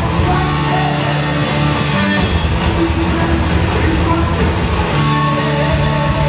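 Heavy metal power trio playing live at full volume: distorted electric guitar, bass guitar and fast, driving drums.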